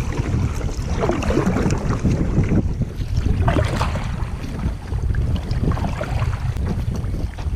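Wind buffeting the microphone in a steady low rumble, with water splashing against a kayak a few times.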